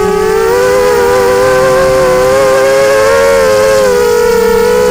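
Dart 250 FPV multirotor's electric motors and propellers whining in flight. The pitch wavers with throttle changes, splitting into two close tones in the middle and settling to one steady tone near the end.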